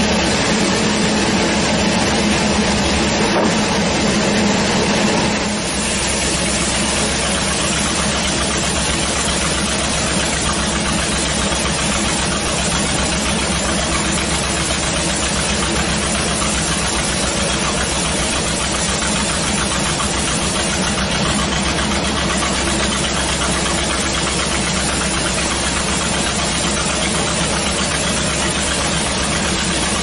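Large sawmill band saw running steadily while keruing timber is fed through it: a dense, even machine drone, a little louder for the first five seconds or so.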